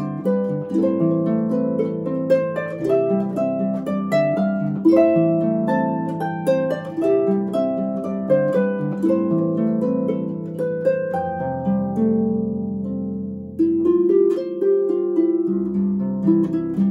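Concert grand (pedal) harp played solo: a plucked melody over rolling chords and ringing bass notes. About twelve seconds in, the notes thin out and ring on for a moment before the playing picks up again strongly.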